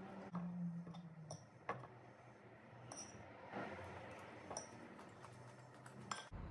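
A handful of light clinks and taps of a metal spoon against a ceramic bowl during a meal, over faint room noise.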